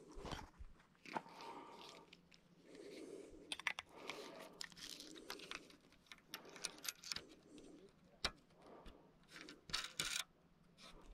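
Faint handling noises of a fly rod and reel: scattered soft rustles and irregular small clicks as the fly line is stripped and handled, with a sharper click about eight seconds in and a few more near the end.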